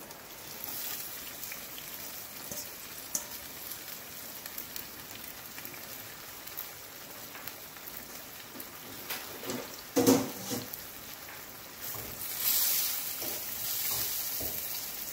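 Coconut milk simmering in a frying pan with a steady sizzle as flaked salt mackerel goes in. A brief knock about ten seconds in, then a spoon stirring the fish through the sauce, with the sizzle louder near the end.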